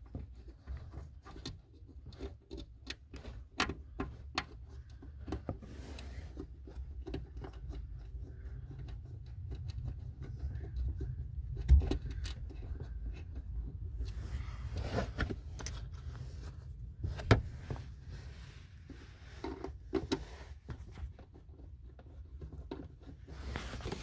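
Scattered small metallic clicks, knocks and rustles of a hand lining up and starting the airbag module's bolts by hand, over a steady low rumble. A few louder knocks come about halfway through.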